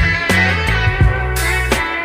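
Background music: a guitar-led instrumental track with a steady beat and bass line.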